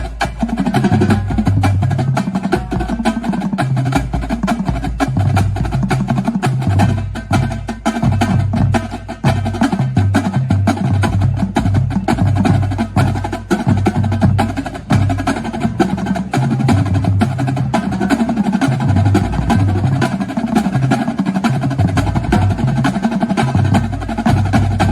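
Drum corps drumline playing an exercise in unison: dense, crisp snare strokes over tuned bass drums that step between pitches.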